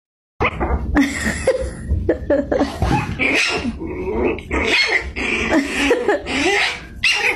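Dog barking in a quick series of short, high yaps, about two a second.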